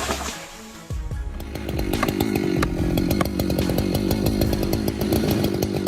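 Large two-stroke chainsaw, a Stihl MS 661, starting up about a second in and then running steadily at high revs.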